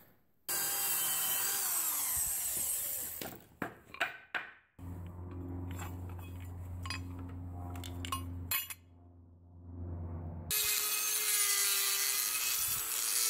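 A run of power-tool work on steel: a hissing cut or grind, a few clicks, and a steady low hum in the middle. Near the end a handheld rotary tool starts grinding a steel flat bar with a steady whine.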